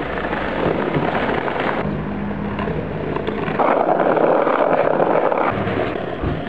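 Skateboard wheels rolling over rough asphalt: a steady grinding rumble.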